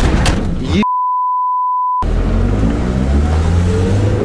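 Loud rumble of a van driving fast, cut off about a second in by a steady high edited-in bleep tone lasting just over a second, with nothing else heard under it. After the bleep the van's engine runs on, its pitch slowly rising as it gathers speed.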